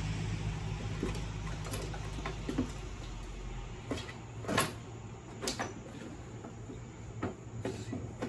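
Scattered knocks and clicks of hand tools and sockets being handled on a mower deck, one louder clank about halfway through. A low steady hum underneath stops a little over a third of the way in.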